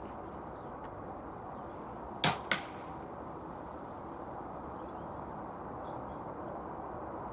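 Air Arms S410 pre-charged pneumatic air rifle firing one shot, a sharp crack, followed about a quarter second later by the smack of the pellet striking downrange.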